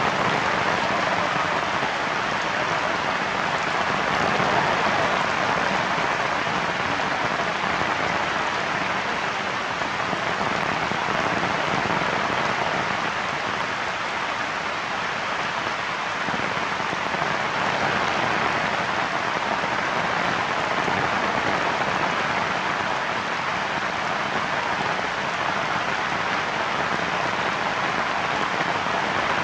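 Heavy rain falling steadily: a dense, even hiss with no letup.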